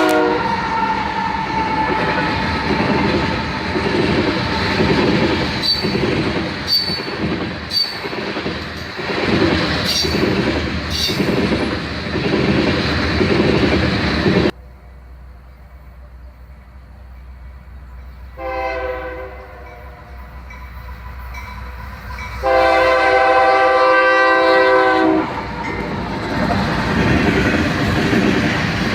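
Train passing with wheels clattering over the rails. After a sudden cut, a locomotive air horn sounds a short blast, then a longer, louder one, a chord of several notes, followed by the rumble of the train coming by.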